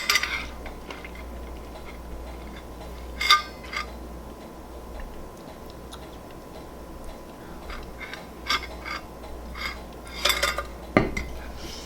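Close-miked eating and handling sounds: scattered short clicks and small taps, a cluster about three seconds in and more near the end, with a soft thump near the end.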